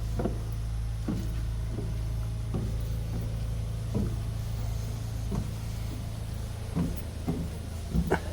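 Footsteps at an even walking pace, a short knock about every two-thirds of a second, over a steady low rumble.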